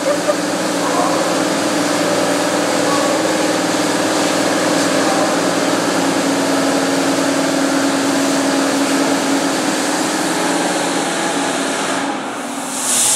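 Automatic car wash machinery running steadily: a loud mechanical drone with several held tones over a broad hiss. About twelve seconds in the noise dips, and a bright, high hiss comes in near the end.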